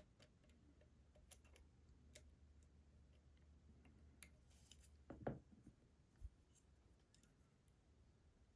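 Faint, scattered clicks and ticks of a lock pick working the sliders inside an ASSA Desmo slider lock, with one louder dull knock about five seconds in.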